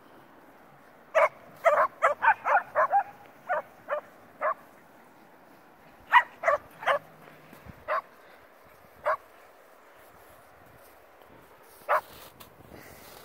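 Shetland sheepdogs (Shelties) barking in short yips: a quick run of about eight barks about a second in, then single barks every second or so, with a last one near the end.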